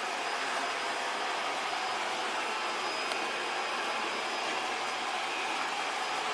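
ILIFE robot vacuum cleaner running with a steady, even whir from its suction fan and brushes, with a faint high whine over it. There is a single light click about three seconds in.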